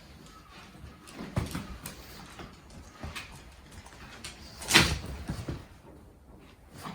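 Scattered knocks and taps, with one clear knock about a second and a half in and a louder one near five seconds.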